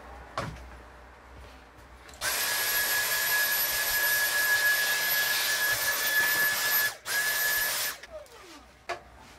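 Small handheld vacuum cleaner switched on about two seconds in, running with a steady high whine over a hiss as it clears debris off a silicone work mat. It cuts out for a moment about seven seconds in, runs briefly again and stops about a second later. Light knocks come before and after.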